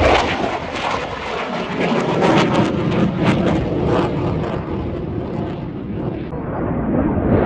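Blue Angels F/A-18 Hornet jet flying overhead: a loud, continuous jet-engine roar with a crackling stretch through the middle. It eases off and then swells again near the end.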